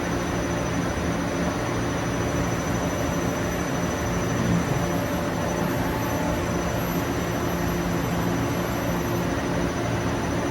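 Taiyo Koki CVG-13 grinding machine running steadily while machining, an even noise with a low hum and a faint high whine throughout.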